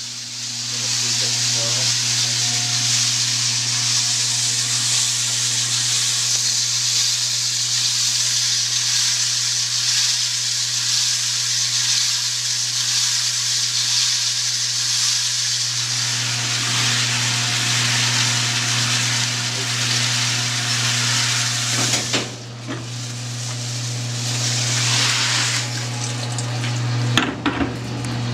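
Tap water running in a steady hiss through hoses into pearl-washing drums, over a steady low hum. The hiss dips briefly about 22 seconds in, and a few knocks come near the end.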